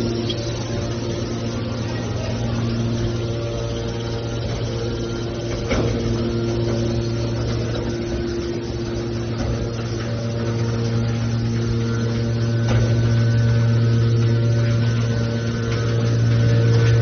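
Hydraulic scrap metal baler running: a steady hum from its motor and hydraulic pump, with two brief knocks, about six and thirteen seconds in.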